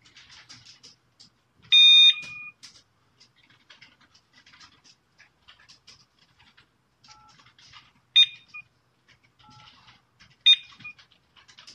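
A GSM alarm panel picking up a phone call with a beep about two seconds in, then two faint phone keypad tones for the digit 8, each answered a moment later by a short, sharp beep from the alarm confirming the key.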